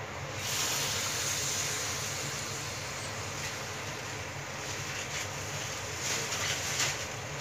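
Hot oil sizzling steadily as a round of flatbread dough deep-fries in a pan, the sizzle rising sharply about half a second in, with a few sharper crackles and spatters later on.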